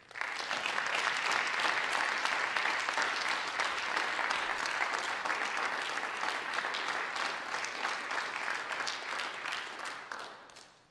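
Audience applauding. The clapping starts suddenly and dies away near the end.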